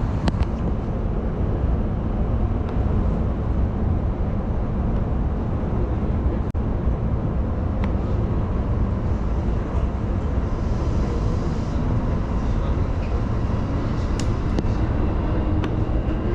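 JR Yokohama Line E233-6000 series electric train running between stations, heard from inside the car: a steady low rumble of wheels on rails with a few sharp clicks.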